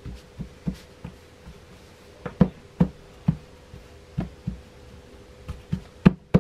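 Irregular dull knocks, a dozen or more, as pizza dough is pressed and worked out by hand on a metal pizza pan resting on a wooden cutting board. The loudest come about two and a half seconds in and near the end. A faint steady hum lies under them.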